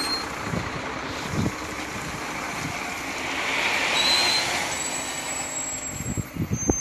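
Loaded dump truck's diesel engine running close by as the truck drives off, a steady noise that swells for a moment about halfway through.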